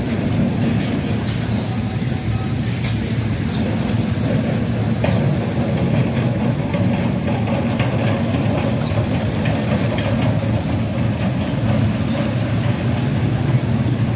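Steady low rumble of motor vehicle noise, even throughout with faint scattered ticks on top.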